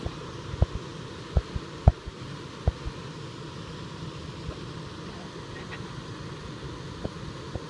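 Steady rush of water spilling over a small weir into a creek, with a few sharp low thumps in the first three seconds.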